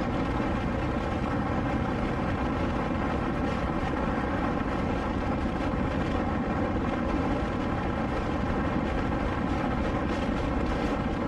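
KTM 690 Enduro R's single-cylinder engine running at a steady cruising speed, its exhaust note even and unchanging under road and wind noise.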